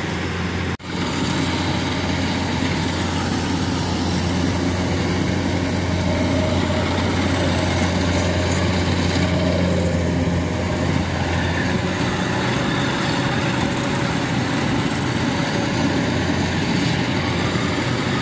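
Kubota 105 rice combine harvester working at full speed, a steady engine and threshing drone. There is a brief gap in the sound about a second in.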